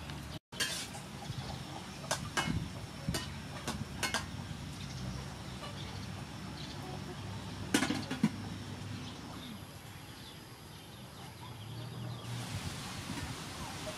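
Quiet outdoor background with scattered light clicks and knocks over a faint low hum, and a faint high steady tone for a few seconds near the end.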